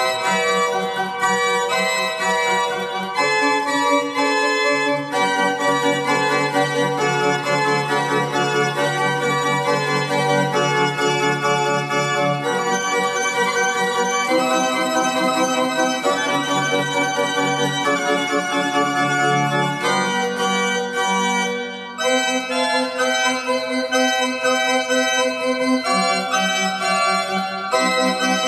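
Organ music playing slow, sustained chords that change every few seconds, with a brief break about two-thirds of the way through.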